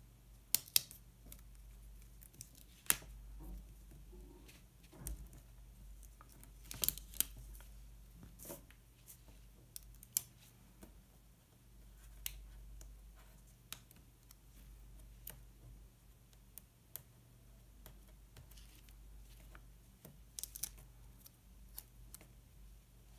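Irregular light clicks and taps of hands handling stickers and paper on a planner page, with a few quick runs of clicks about seven seconds in and again near the end.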